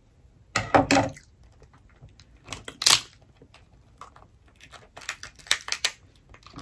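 Cooked lobster shell being cracked and pulled apart by hand: irregular sharp cracks and crackles, in clusters about a second in, near three seconds, and again between five and six seconds.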